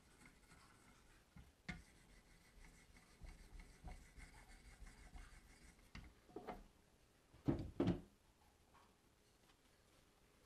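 Faint rubbing strokes of sharpening-stone paddles drawn along a knife edge clamped in a Wicked Edge sharpener. After that come a few clunks of the sharpener's clamp and parts being handled, the loudest a pair of knocks near the end.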